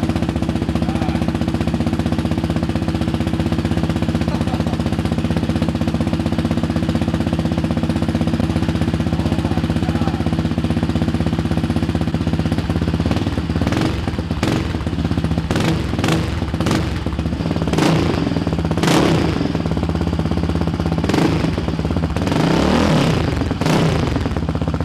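Yamaha Raptor 700's single-cylinder four-stroke engine running through a new Big Gun EVO R dual exhaust on its first start, idling steady with a deep, throaty note. From about halfway through, the idle turns uneven with a series of short throttle blips.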